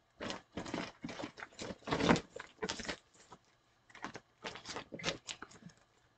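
A plastic bag rustling and crinkling in quick, irregular bursts as it is handled, loudest about two seconds in, with a short pause just past the middle.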